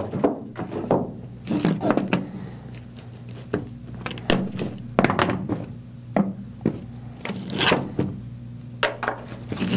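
Coiled HVAC charging hoses with brass end fittings being handled and laid on a table: about a dozen scattered light thunks and knocks at irregular intervals.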